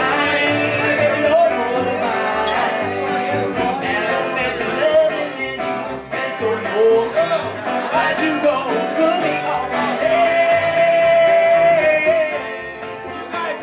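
A live band playing a song: electric guitar and a plucked upright bass keeping a steady line of low notes, with a man singing over them and holding one long note near the end.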